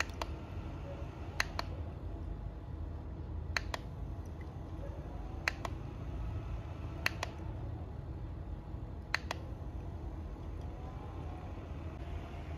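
About nine short, light clicks from a hand on a plastic aroma diffuser, spaced irregularly and some in quick pairs, over a steady low rumble.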